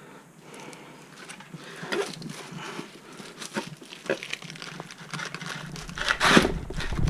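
A rubber tire being twisted and worked by hand over a Onewheel Pint wheel hub: irregular scraping, rubbing and light knocks of rubber and plastic tools on the metal hub. A louder scrape comes about six seconds in, as a low rumble builds.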